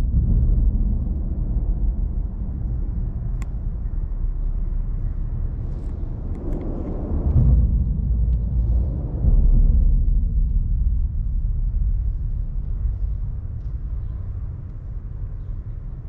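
Low rumble of traffic crossing the bridge, swelling twice as vehicles pass, about six and nine seconds in, then slowly fading.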